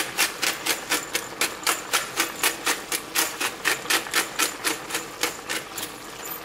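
Hand-twisted salt or pepper mill grinding seasoning over a pot, its mechanism clicking steadily about four times a second as it is turned, stopping near the end.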